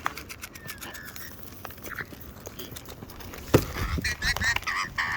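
Wild birds calling with short, wavering squawks from about four seconds in, after a scatter of small clicks and a single thump.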